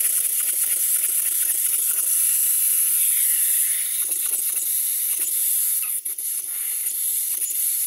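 Steady hiss of compressed air blowing through a Stuart Models Twin Launch twin-cylinder model steam engine run on air. The engine is stiff after its rebuild and only just turning over.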